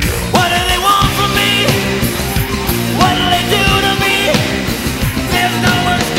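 Loud live rock music from a full band with drums and electric bass, and a male voice singing long held notes into a microphone over it.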